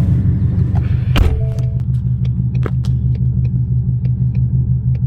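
A 2019 Ford Mustang's engine running with a steady, pulsing low rumble. There is a sharp click about a second in and light ticks after it.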